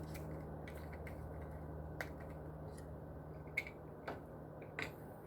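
Light, scattered clicks and taps of a FreeStyle Libre 3 sensor applicator and its plastic packaging being opened and handled, five or so sharp ticks a second or less apart, over a faint low hum.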